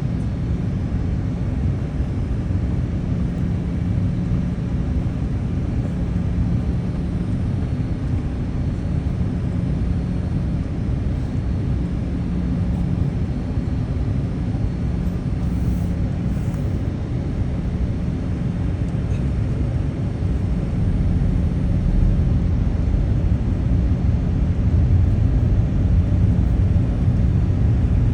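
Boeing 787 airliner in flight: a steady low rumble of engines and airflow with a faint constant hum, growing a little louder about three quarters of the way through.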